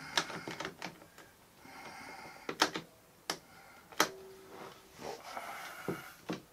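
Woodworking clamp being handled and fitted onto a glued wooden frame to press the joints: a series of sharp clicks and knocks, about six, with short scraping sounds between them.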